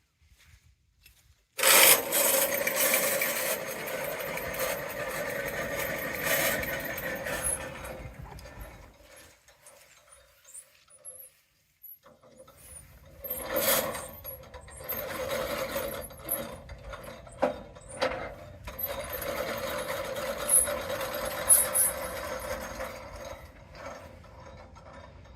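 Woodland Mills sawmill cutting white pine, a steady rasping run with a held tone, starting suddenly about two seconds in. It dies away, stops for a few seconds, then starts again and runs on until it fades near the end.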